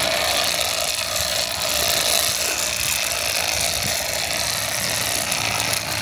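Electric fillet knife running with a steady buzz, its serrated blades sawing through the spiny dorsal fin of a hybrid striped bass.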